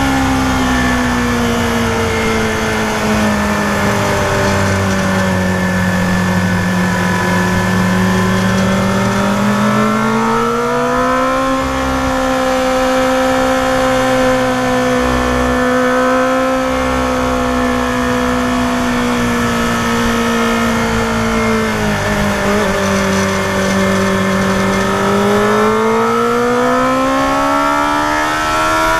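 Yamaha FZR250R's inline-four engine heard on board, its pitch falling as the rider eases off, rising and holding steady in the middle, dipping again, then climbing near the end under acceleration, over a rush of wind.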